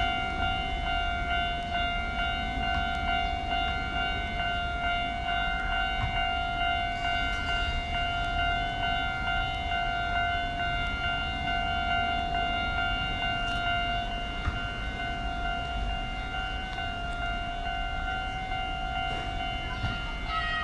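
Japanese railway level-crossing warning bell ringing, an electronic ding that repeats evenly without a break, over a low rumble.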